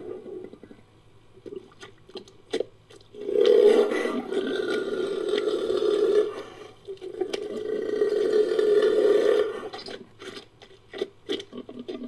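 Made-up creature call sound effect, mixed from jaguar and other animal sounds: two long calls, the first starting about three seconds in and lasting about three seconds, the second a little shorter, with scattered short clicks before and after.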